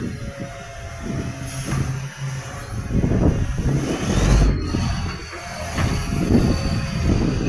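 Garbage truck's diesel engine running loud and rough, its exhaust crackling through a large exhaust leak. It grows louder about three seconds in, and a high whine rises and then holds about a second later.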